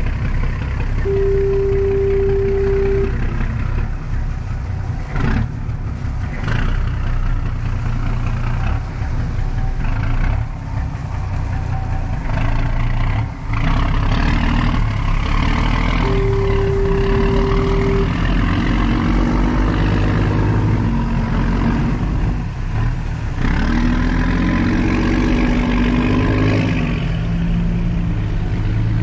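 Motorboat engine running under way, a steady low rumble mixed with wind and water noise. Two long steady tones sound, about fifteen seconds apart.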